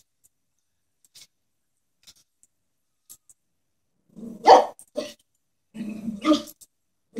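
Chihuahua barking, three or four sharp barks starting about four seconds in after a nearly silent start. The small dog is barking defensively at a stuffed toy horse it is wary of.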